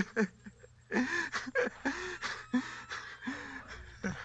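A man laughing in short, breathy, broken bursts with gasps between them, a release of pent-up tension.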